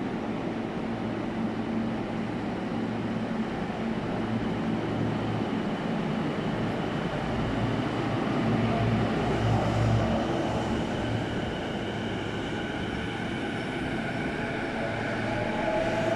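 JR East E233-series electric train at the platform with a steady low hum, then pulling away: from about two-thirds of the way through, its VVVF traction inverter whine rises in pitch as it accelerates.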